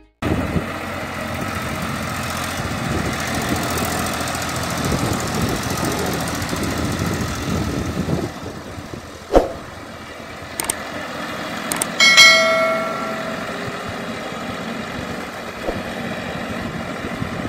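Massey Ferguson 7250 DI tractor's three-cylinder diesel engine running steadily under load as it drives a gyrovator through wet paddy-field mud. A sharp knock comes about nine seconds in, and a short ringing tone, the loudest sound, comes about twelve seconds in.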